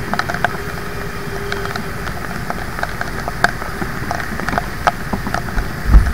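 Traffic and motorbike engines idling in steady rain at a stop, a low rumble with scattered sharp ticks of raindrops striking the helmet camera. A louder low thump comes at the very end.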